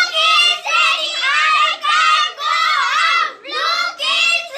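A group of young children chanting in unison, shouting a short English sentence together in a choral recitation drill: "Look, it's raining, I can't go out."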